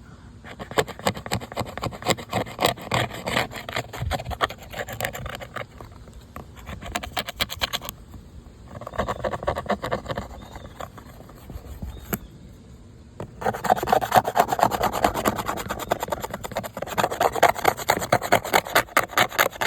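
Paper towel soaked in Goo Gone rubbed hard back and forth over a plastic dirt-bike number plate to scrub off old sticker adhesive, in runs of quick strokes with brief pauses.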